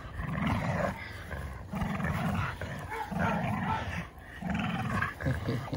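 Two pit bulls growling while they pull against each other on a rope tug toy, in short spells about a second apart.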